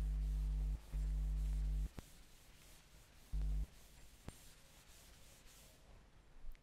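Board duster rubbing chalk off a chalkboard, a faint scrubbing, under a loud steady electrical hum that cuts in and out several times in the first few seconds. Two sharp clicks, about two and four seconds in.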